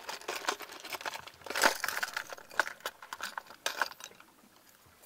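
Hard plastic fishing lures clicking and rattling against each other and the plastic compartments of an open tackle box as a hand rummages through it. Irregular small clicks and rustles that thin out in the last second.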